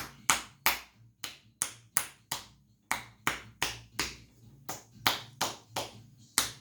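Massage therapist's hands rhythmically striking a patient's rib cage in percussion massage, done to loosen phlegm and ease breathing: sharp slaps about three a second, with a brief pause a little under three seconds in.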